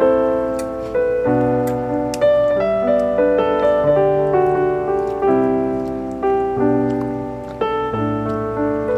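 Background piano music: a slow melody in chords over deep bass notes, each note struck and fading away.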